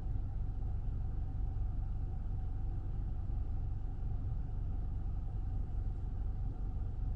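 Kia XCeed's 1.4-litre turbo petrol engine idling, heard inside the cabin as a steady low rumble.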